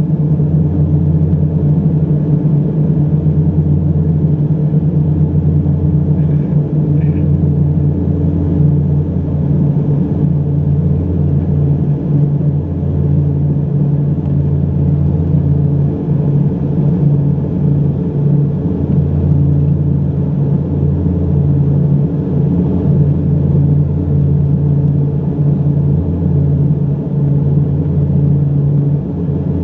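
Embraer EMB 120 Brasilia's twin turboprops droning steadily, heard inside the cabin, with a slow regular pulsing in the low hum as the two propellers beat against each other.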